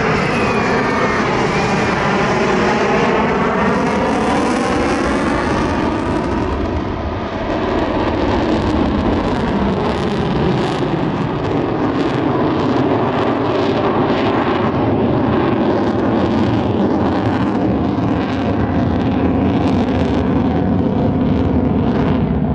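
Lockheed Martin F-35 Lightning II's single F135 jet engine, loud, as the fighter flies past: a high whine falls in pitch over the first couple of seconds, then settles into a steady roar.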